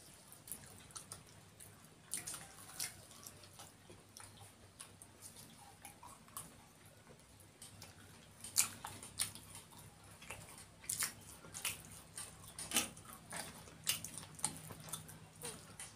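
Two people eating samosas: chewing with irregular wet mouth clicks and smacks, some louder ones in the second half.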